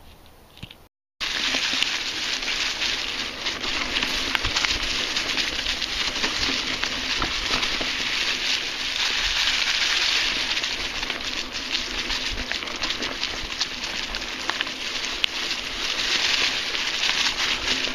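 Trek full-suspension mountain bike's knobby tyres rolling over dry fallen leaves on a dirt trail: a continuous crackling rustle thick with small clicks and rattles, setting in abruptly about a second in.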